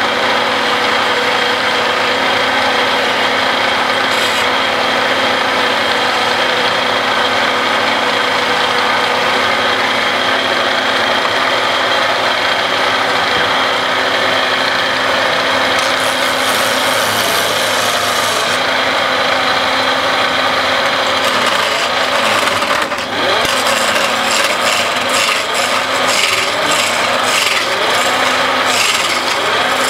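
Wood lathe running steadily while a hand-held turning chisel scrapes and cuts against the spinning wooden sofa leg. About 23 seconds in, the sound dips briefly and then turns into a rapid, rhythmic rubbing against the wood.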